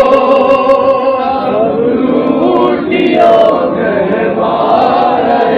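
Men chanting a noha, a Shia mourning lament, with several voices singing together in long drawn-out lines.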